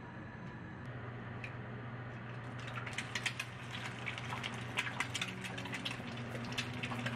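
Eggs frying in hot oil in an enamelled cast-iron skillet: a sizzle of quick spattering crackles that builds from about two and a half seconds in as the eggs go into the pan, over a low steady hum.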